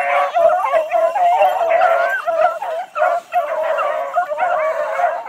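A pack of beagles baying together, several overlapping voices in an unbroken chorus. This is the cry of hounds that have picked up a rabbit's scent and are running the trail.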